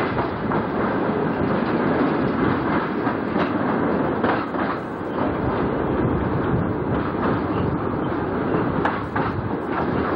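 Passenger train running along the track, heard from an open carriage window: a steady rushing rumble with the wheels clicking over rail joints.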